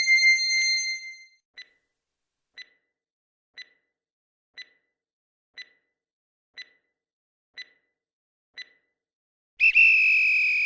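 Quiz countdown timer sound effect: a pitched chime fades out, then eight short ticks one second apart, then a loud electronic buzzer tone lasting about a second, marking time up.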